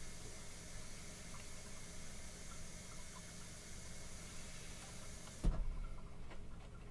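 Faint clicks of small plastic model-kit parts being handled over a steady hiss. About five and a half seconds in a low thump sounds and the hiss cuts off suddenly.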